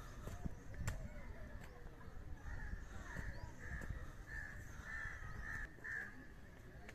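A crow cawing in a quick series of about seven calls, starting a little over two seconds in and stopping about a second before the end.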